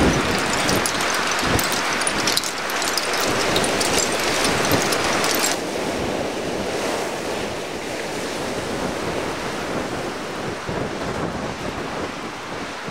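Sea surf washing ashore, with wind buffeting the microphone. A crackling fizz in the first half gives way to a smoother, steady rush about five and a half seconds in.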